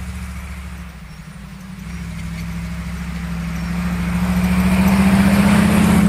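Engine of a lifted four-wheel-drive SUV running steadily as it drives up through snow and passes close by, growing steadily louder, with tyre noise rising over the engine hum in the last seconds.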